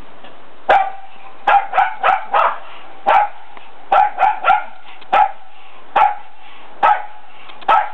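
A dog barking, about a dozen short, sharp barks. Some come in quick runs of three or four, and the later ones are spaced about a second apart.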